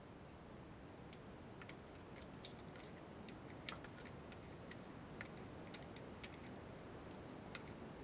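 Faint, irregular small clicks of plastic electrical connectors being worked loose from the fuel injectors with a screwdriver, disabling injection for a compression test.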